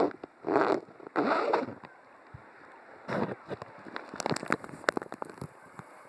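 Splashing water: two short bursts of splashing in the first two seconds, then many small scattered splashes and drips.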